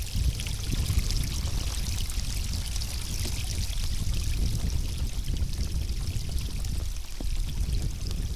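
Small shallow stream running and trickling over stones in a steady babble, with a low rumble underneath.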